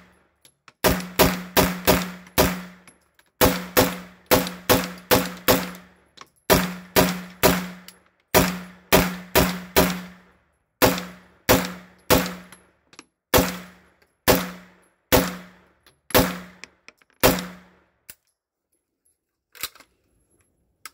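PTR 9CT 9mm semi-automatic pistol firing about thirty shots in quick strings of four to six, around three shots a second, each shot ringing in the enclosed range. The strings thin out to single shots and the firing stops near the end.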